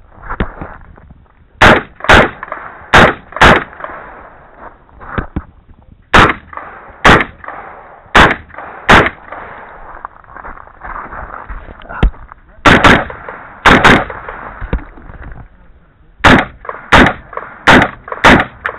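Rifle shots along a match firing line: about seventeen sharp cracks at uneven spacing, several in quick pairs about half a second apart, with a few fainter shots from farther down the line.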